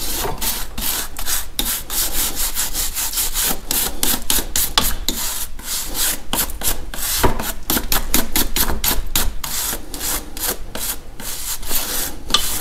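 Rapid back-and-forth scrubbing strokes, several a second, as rust and dirt buildup is cleaned off a Jeep Liberty's rear coil spring seat.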